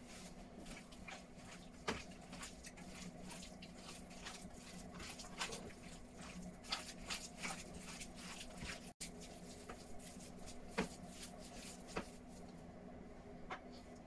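Hand mixing raw beef chunks with spices in an enamel bowl: irregular soft squishing and short clicks. A faint steady hum runs underneath.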